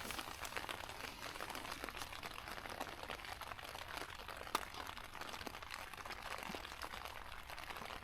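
Rain falling, a dense irregular ticking of drops hitting nearby surfaces, with one sharper tap about halfway through.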